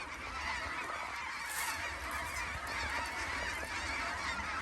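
A large flock of snow geese calling, many overlapping honks and yelps merging into a dense, continuous chorus.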